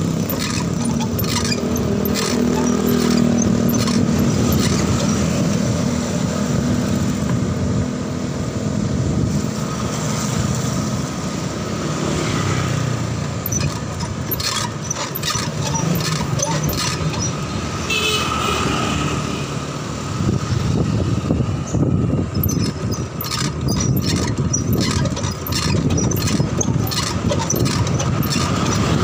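Street noise heard while riding a bicycle: passing motor traffic runs along throughout, with frequent rattling clicks from the bicycle's front end over the road.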